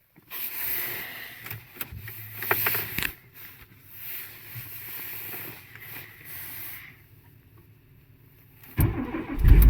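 Scattered clicks and faint rustling, then, near the end, the Renault Logan's engine is started: a brief burst as it cranks, and it catches and runs with a steady low sound.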